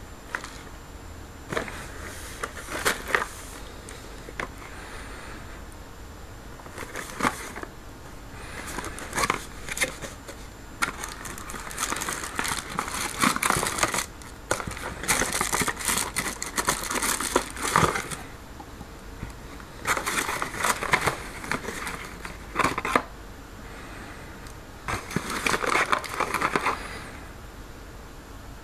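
A cardboard box being opened and unpacked by hand: crinkling and rustling of cardboard and packaging, with knocks and clicks as small plastic bottles are lifted out and set down. It comes in irregular bouts, busiest in the middle.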